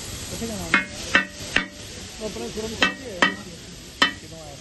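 A metal spatula strikes and scrapes a large flat tawa griddle while chopping masala chicken, with six sharp ringing clangs over the steady sizzle of the frying sauce.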